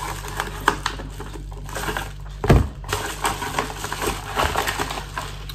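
Packaging and small items handled on a tabletop: rustling with light clicks and clinks, and one louder knock about two and a half seconds in.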